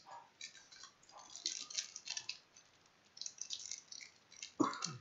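A trading card pack's wrapper crinkles as it is torn open and the cards slide out, in a run of small irregular crackles. About four and a half seconds in there is one louder short thump.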